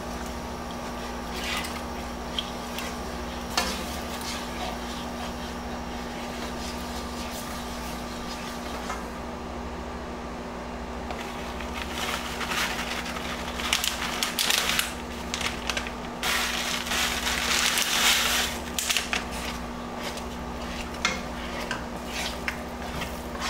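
A plastic slotted spoon stirring and scraping a thick cheese sauce in a nonstick saucepan, with occasional light knocks against the pan. About halfway through, a bag rustles as shredded cheddar is poured in, and the stirring gets busier and louder as the cheese is worked in. A steady hum runs underneath.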